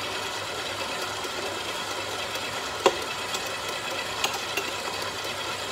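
Stand mixer motor running with a steady whir while ingredients go into the bowl. A sharp clink sounds about three seconds in, with two lighter clicks a little over a second later.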